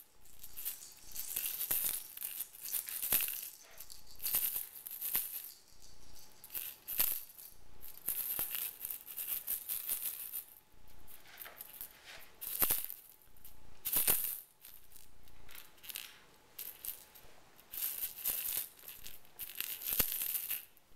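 Plastic balls rolling and rattling round the tracks of circular plastic cat toys as kittens bat at them, in irregular bursts of clattering with sharp clicks.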